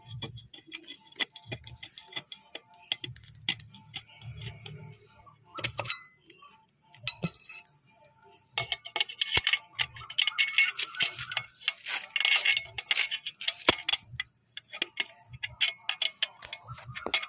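Handling noise from a hand working among wiring and metal parts behind the motorcycle frame: scattered clicks, light metallic clinks and dull knocks. From about eight and a half seconds in it turns into a denser run of scraping, rustling and clicking.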